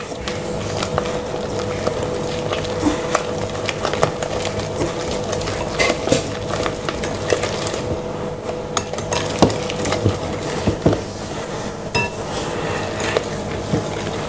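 Wire balloon whisk stirring waffle batter in a glass mixing bowl, the whisked egg white being mixed in: continuous stirring with frequent irregular clinks and taps of the metal wires against the glass.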